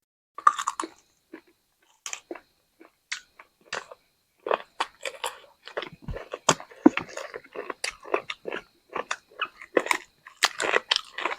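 Close-up chewing and crunching of crispy fried chicken, with bites, wet mouth sounds and irregular crackles, busier in the second half.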